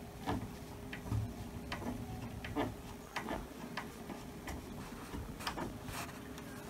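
Scattered light clicks and ticks, irregularly spaced, from a classical guitar's tuning machine and a new low E string being handled and turned at the headstock.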